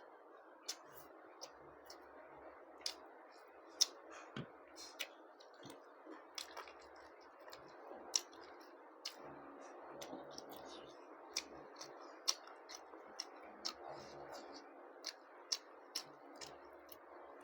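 Close-up eating sounds: short, irregular sharp clicks and smacks of a mouth chewing food, roughly one to two a second, over a faint steady background hiss.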